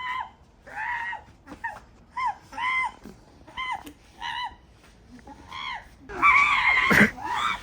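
A run of short, high-pitched yelping cries, each rising and falling in pitch, several to the second. They get louder and overlap in the last second or so.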